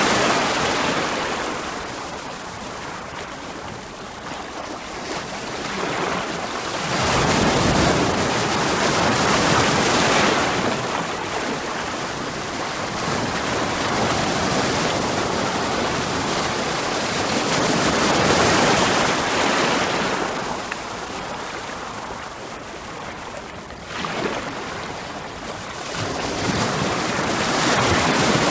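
Sea waves breaking on rocks: slow swells of surf that rise and wash back every several seconds, one surge coming in suddenly about three quarters of the way through.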